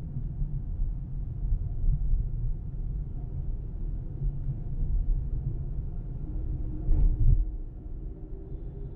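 Car driving on an urban freeway: a steady low rumble of tyres and engine, with a single short thump about seven seconds in.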